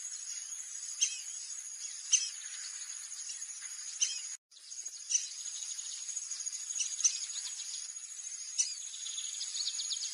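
A steady, high insect drone with short, sharp, high bird chirps repeating every second or two over it. The sound cuts out completely for a moment about four and a half seconds in.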